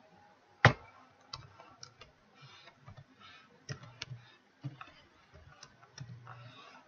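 Computer keyboard keys being typed, irregular single clicks with one louder keystroke a little over half a second in.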